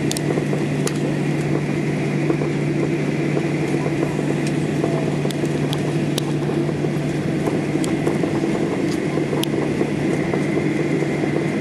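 Steady cabin noise of a Boeing 737-800 taxiing on the ground: its twin CFM56 turbofan engines running at low thrust, a constant drone with a faint steady whine above it, the level holding even throughout. A few faint clicks from the cabin are scattered through it.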